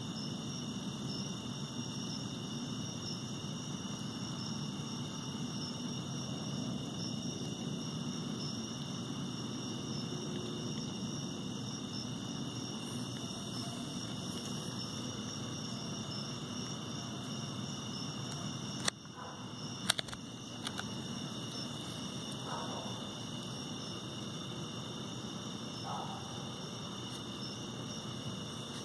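Steady high chorus of night insects, with a low rumbling hum under it. Two sharp clicks come about two-thirds of the way through.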